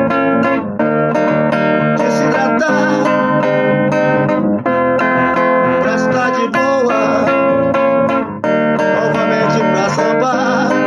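Instrumental music led by guitar, with no singing.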